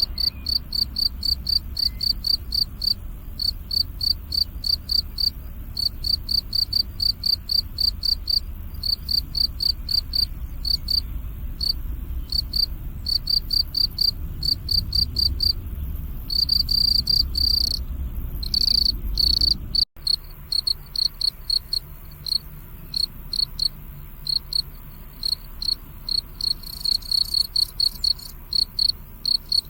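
Crickets chirping in a steady pulsing rhythm, about three chirps a second, with a few longer trills two-thirds of the way in. A low rumble runs under the first part, and the sound breaks off for an instant about 20 seconds in before the chirping resumes.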